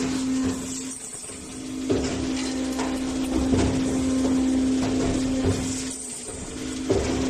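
Short return U tube bending machine running through its cycle: a steady motor hum that stops twice for about a second, with sharp metallic clanks as it restarts and a few more in between.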